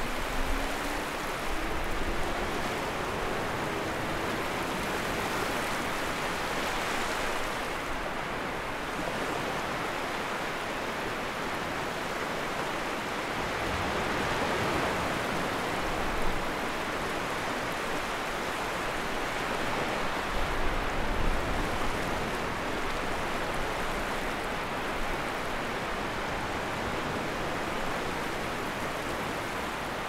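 Sea waves washing on the shore: a continuous rush of surf that swells and eases every several seconds.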